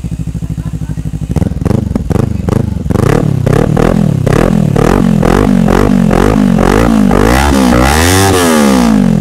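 Kawasaki Ninja 400's parallel-twin engine through a short GP1 slip-on muffler with its silencer insert removed, with a deep exhaust note. It idles, then from about a second and a half in the throttle is blipped again and again in quick revs, ending in a longer, higher rev near the end before it drops back toward idle.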